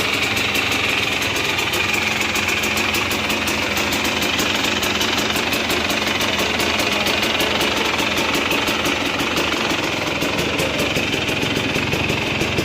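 GasGas EC300 enduro motorcycle's 300cc two-stroke single idling steadily, just after starting, while it warms up.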